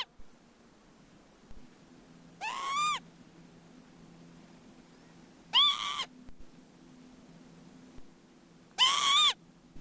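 A short, arching animal call, repeated three times about three seconds apart over a faint low hum.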